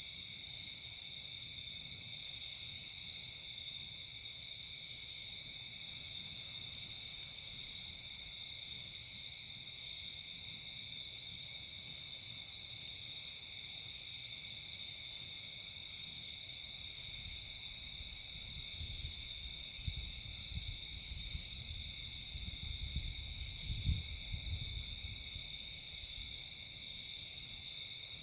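A steady outdoor chorus of night insects, crickets or katydids, chirring without a break, with a higher trill that swells and fades every few seconds. Near the end a few low thumps and rumbles come in, the loudest about 24 seconds in.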